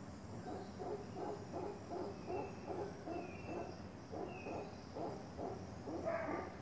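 Mantled howler monkeys calling: a rhythmic series of deep, grunting hoots, about three a second, swelling to a louder call near the end. This is territorial calling between troops.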